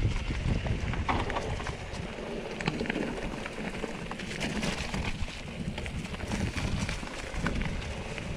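Mountain bike rolling down a rocky trail: tyres crunching over stones, with scattered clicks and rattles from the bike, under low wind rumble on the microphone.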